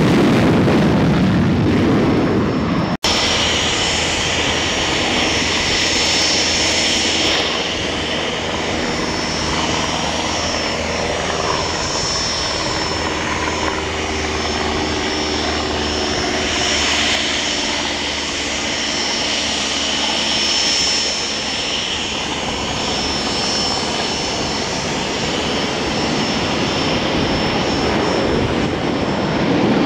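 Wind and surf noise on the microphone, cut off sharply about three seconds in. After the cut, aircraft turbine engines run with a steady whine and several held high tones.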